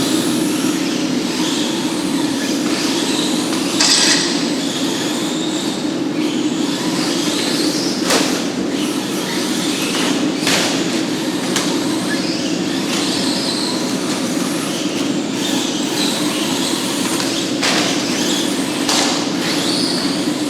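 Several Team Associated SC10 remote-control short-course trucks racing on a track: a steady mix of motor whine and tyre noise, with a few sharp knocks.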